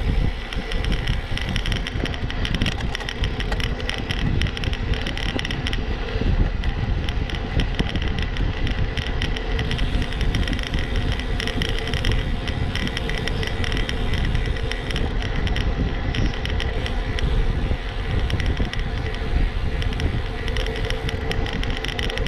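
Wind rushing over the camera's microphone, with tyre noise from a road bicycle coasting downhill, its speed climbing. A steady, loud, rumbling noise with no breaks.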